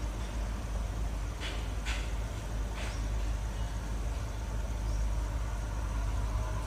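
Approaching WDG4 diesel-electric freight locomotive's two-stroke engine running as a steady low rumble, growing slightly louder in the second half. A few short sharp high sounds about one and a half to three seconds in.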